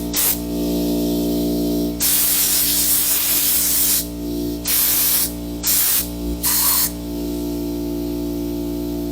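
Compressed-air blow gun hissing in short blasts, then one long blast of about two seconds, then three more short blasts, blowing dust and dirt out of a lawn mower engine's air filter housing.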